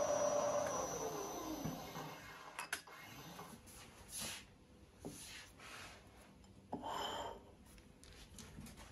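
A machine tool's motor spinning down, its pitch falling steadily over the first couple of seconds as it coasts to a stop, followed by scattered clicks and short rubbing sounds of metal parts being handled.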